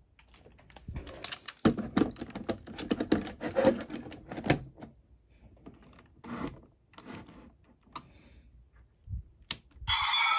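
Hard plastic clicking and rattling as a DX Desire Driver toy belt is handled, dense for the first few seconds and then scattered. Near the end come two low thumps as the buckle is set down on its stand.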